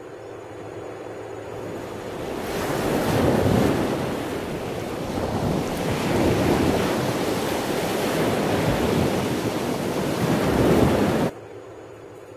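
Rushing noise of sea surf, building and swelling in three surges, then cut off sharply near the end, leaving a faint fading hiss.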